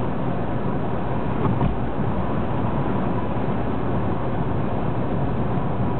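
Steady driving noise of a moving car, heard from inside the cabin.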